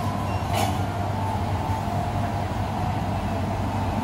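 Steady low rumble of city street traffic, with a double-decker bus's engine idling, and a short hiss about half a second in.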